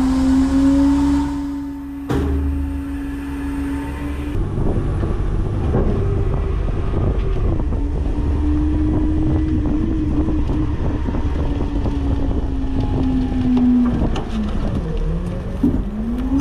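Autocar/Heil front-loader garbage truck running at raised revs with a steady whine, as when it works its hydraulic packer; the pitch sags briefly near the end and then climbs again.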